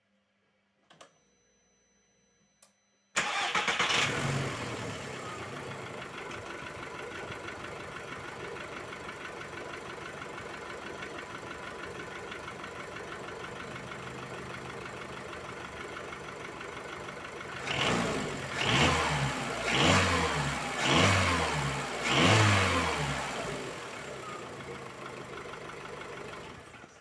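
Volkswagen Golf IV 1.4 petrol engine starting about three seconds in and settling to a steady idle. It is then blipped up four times in quick succession before dropping back to idle and cutting off near the end. It has a knock that the owner cannot place.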